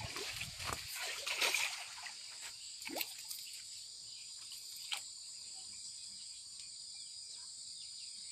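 Water splashing and sloshing at a pond's edge as a freshly caught fish is handled, loudest in the first two seconds. Then come a couple of light knocks and a faint steady high hiss.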